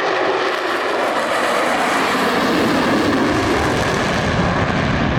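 Blue Angels aircraft flying past with loud engine noise, its pitch falling steadily as it passes and a low rumble building near the end.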